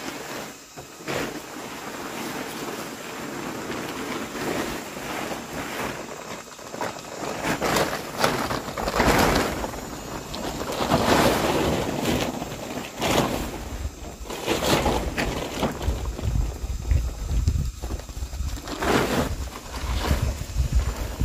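Large plastic tarp rustling in repeated swishes as it is dragged, shaken out and spread on the ground. Wind rumbles on the microphone in the second half.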